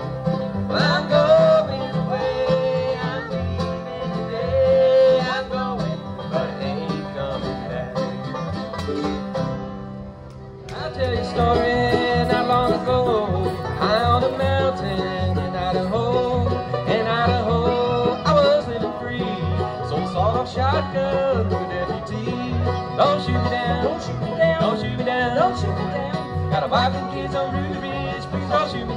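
Bluegrass band playing an instrumental break on banjo, mandolin, acoustic guitar and upright bass, with no singing. The playing thins briefly about a third of the way in, then comes back fuller.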